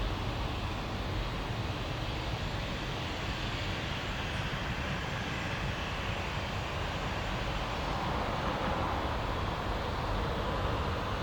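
Jet airliner engine noise, a steady rushing roar with low rumble that swells a little about eight seconds in.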